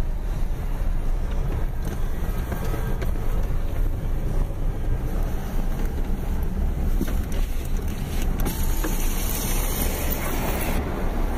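Jeep Grand Cherokee driving slowly along a sandy, rutted desert wash, heard from inside the cabin: a steady rumble of engine and tyres over rough dirt. A hiss grows louder near the end.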